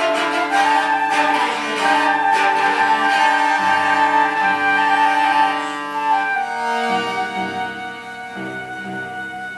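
Flute and cello playing together in a busy passage of many overlapping notes, growing quieter over the second half.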